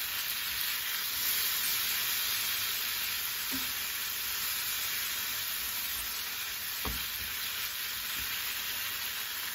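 Strips of hard tofu sizzling in oil in a nonstick frying pan while being stirred and turned with a spatula, the tofu just starting to brown. A single light knock sounds about seven seconds in.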